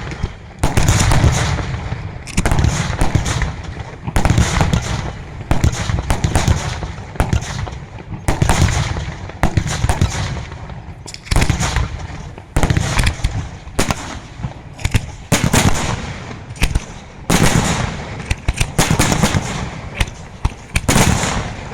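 Fireworks display: aerial shells bursting one after another, roughly one every second, each sharp bang trailing off in a rumble before the next.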